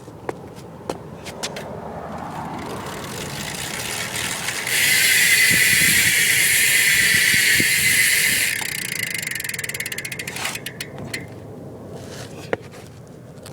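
BMX rear cassette hub freewheeling: its clicking blurs into a loud, pretty high buzz for about four seconds in the middle, then slows into separate ticks as the wheel winds down.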